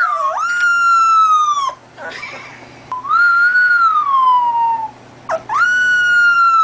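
Young puppy howling: three long, high howls, each rising quickly and then sliding slowly down in pitch, with short gaps between.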